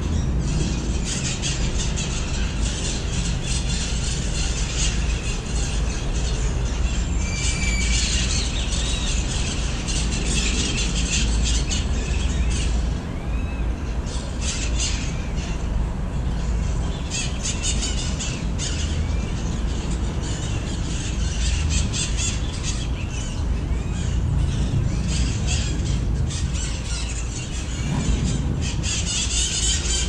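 A flock of parrots screeching, many harsh, rapid calls overlapping and thinning out for short spells, over a steady low rumble.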